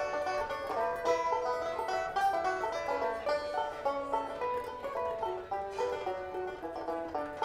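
Live acoustic string-band music: a five-string banjo picks a quick run of bright notes over lighter plucked-string accompaniment, with little bass or drum underneath.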